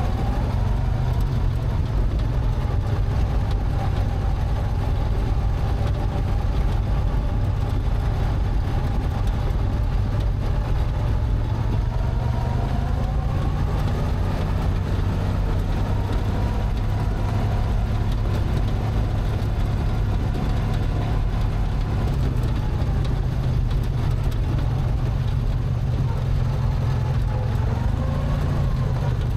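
Racing lawn mower's Briggs & Stratton twin-cylinder engine running steadily as the mower drives along, with a faint higher whine above it that drifts a little in pitch.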